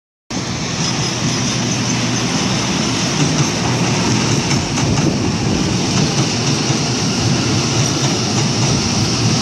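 CPTM electric commuter train running along the tracks just below, a steady, loud noise of wheels on rail.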